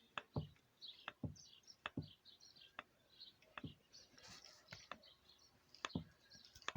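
Removed Kraft rear shock absorber from a VAZ-2110 being compressed and extended by hand, giving a series of sharp knocks at the end of the extension stroke, about one a second: the worn strut is the cause of the car's rear knock. Birds chirp faintly behind.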